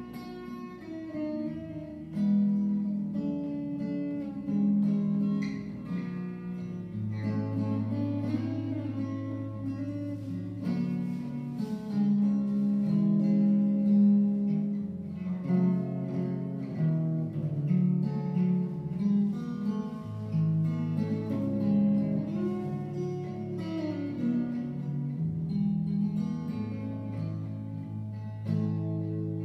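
Solo acoustic guitar, a cutaway steel-string played instrumentally: a plucked melody over low bass notes that are each held for a second or two.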